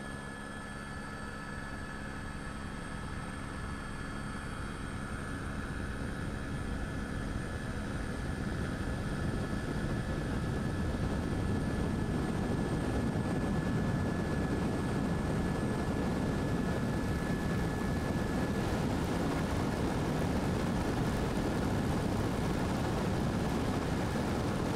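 Steady engine noise that grows louder over the first ten seconds or so, then holds level.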